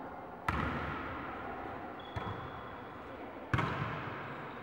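A volleyball being struck by hand: two sharp smacks, one about half a second in and another about three and a half seconds in, with a lighter hit between them, each ringing on in the echo of a large sports hall.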